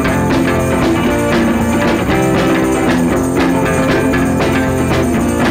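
Background music: a song with guitar and drums and a steady beat.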